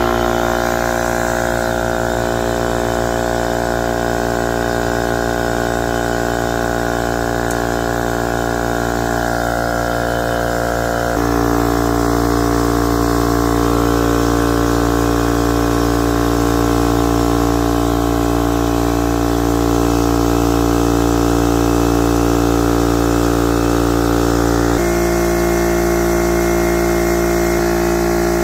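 Husky 8-gallon air compressor running steadily, its motor and pump filling the tank. Its running note changes about eleven seconds in, getting slightly louder, and changes again about twenty-five seconds in.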